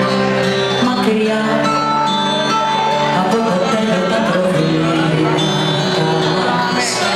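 Live band performance: a woman singing into a microphone over keyboard accompaniment, with held notes, heard amplified in the hall from among the audience.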